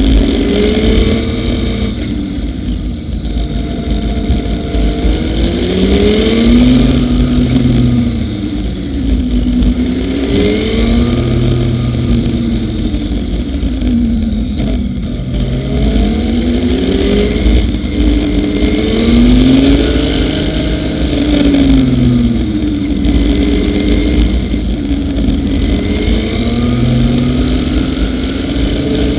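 Motorcycle engine running under way, its pitch rising and falling every few seconds as the throttle is opened and closed. A steady rumble of wind runs on the microphone beneath it.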